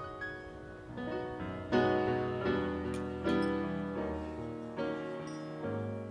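Soft lounge-style piano music, with chords and single notes struck every second or so and each left to ring.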